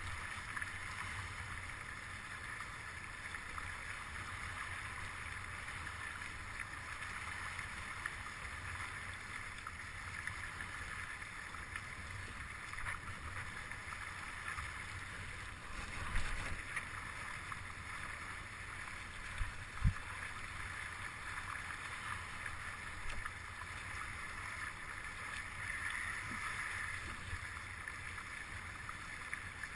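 Steady rush of water along the hulls of a Stunt S9 catamaran under sail, with low wind rumble on the microphone. Two brief thumps come a little past the middle.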